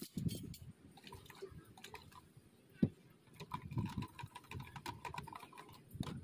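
Drink-making at a coffee bar: small clicks and handling of cups and utensils with liquid being poured, and one sharper knock a little under three seconds in.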